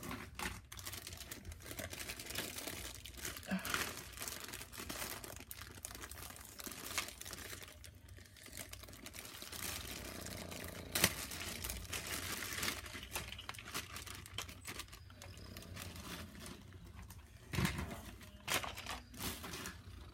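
Toy packaging being opened: continuous crinkling and tearing of wrapping, with scattered clicks and knocks of the tunnel pieces being handled, a sharp click about halfway through and a few louder knocks near the end.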